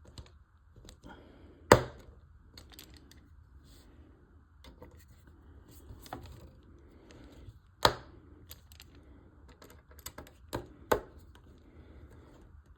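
Small screwdriver working small screws into a model kit's frame, with scattered light clicks and taps and three sharper clicks.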